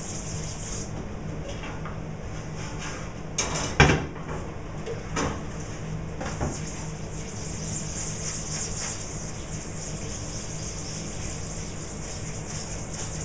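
Stiff brush scrubbing dried-in water-based screen-printing ink off a mesh screen, a scratchy swishing that pauses briefly and then keeps going. A few knocks about three to four seconds in, the loudest a sharp knock, over a steady low hum.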